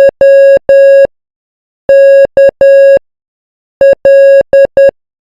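Morse code sent at 10 words per minute as a steady mid-pitched beep keyed on and off: the last three dahs of J, then K (dah-dit-dah), then L (dit-dah-dit-dit), with a pause between letters.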